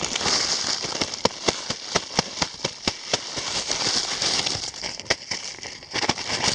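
Snow poured onto a campfire's hot embers and ashes to put it out: a dense hiss with many sharp crackles and pops, easing briefly about six seconds in before more snow lands.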